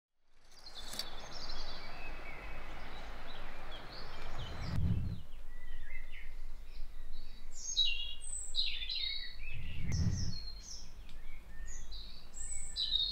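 Small birds chirping and singing in short high calls from about five seconds in. Before that there is a steady hiss that stops suddenly, and a low rumble comes twice, near five and ten seconds.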